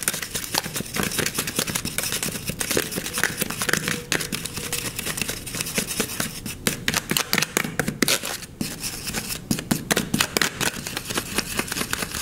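Metal spoon stirring clear shampoo and sugar in a clear plastic tub, the spoon clicking and scraping rapidly and continuously against the plastic.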